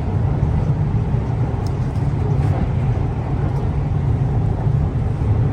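Hyderabad Metro train running between stations, a steady low rumble.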